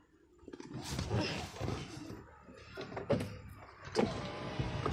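Rustling and bumping of someone shifting about inside a car's cabin, with a few sharp clicks or knocks, one about a second in and two more near the end.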